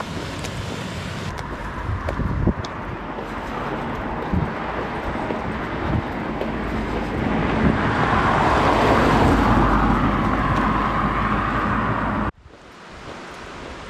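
A vehicle approaching and passing on the road, its tyre and engine noise swelling to a peak about nine seconds in over a steady outdoor wash, then cutting off abruptly near the end.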